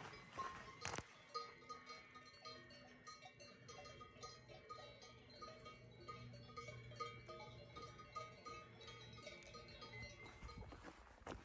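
Faint, irregular clanking of cowbells worn by grazing cattle, several bells at different pitches sounding on and off. A few footsteps come in near the end.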